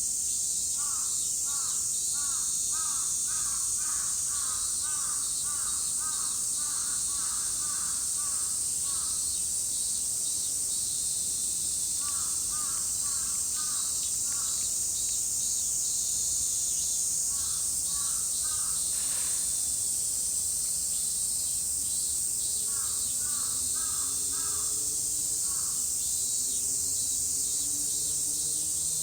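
A chorus of cicadas shrilling steadily, a dense 'cicada shower'. Over it a bird calls in runs of short repeated notes, the longest run in the first nine seconds, and a faint low rising hum comes in near the end.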